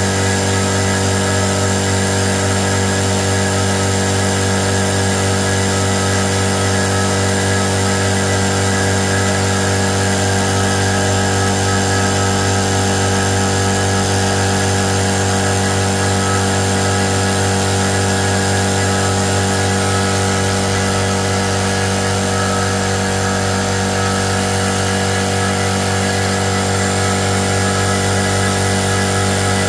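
Tagred TA3397 running under test, its motor holding one steady pitch with a hum and whine at an even level throughout.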